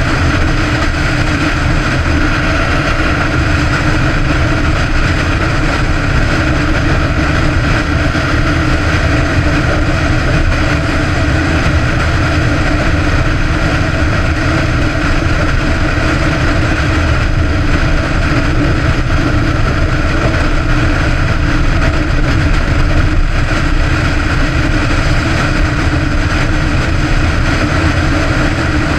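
Sport motorcycle engine running steadily at cruising speed, heard from on the moving bike, with a dense rush of road and wind noise beneath it. Its pitch stays constant throughout.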